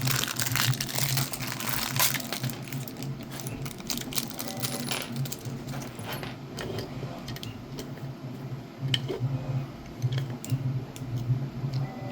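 Small metal lock parts clicking and clattering as a deadbolt is handled and fitted into its mounting block, with irregular sharp clicks throughout.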